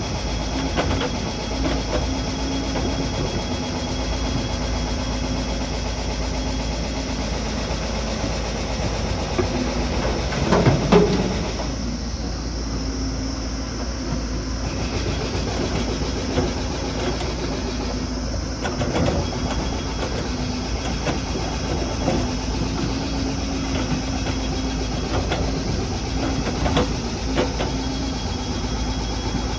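Heavy diesel construction machinery running steadily, with scattered clanks and knocks and one louder burst of clattering about ten seconds in.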